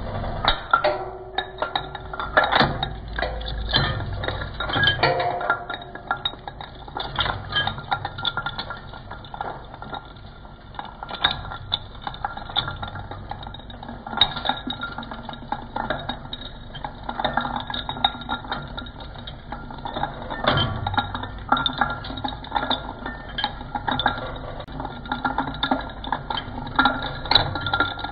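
A glass spotlight bulb bouncing and rattling on the turning steel cutters of a twin-shaft shredder: a rapid, uneven run of clinks and knocks. The shredder's motor runs steadily underneath, and the cutters do not bite into the bulb.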